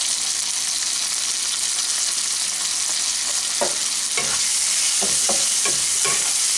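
Chopped tomato, onion and green chilli sizzling in hot refined oil in a non-stick kadai, a steady hiss. From a little past halfway a spatula stirs and scrapes the pan, adding a few short knocks.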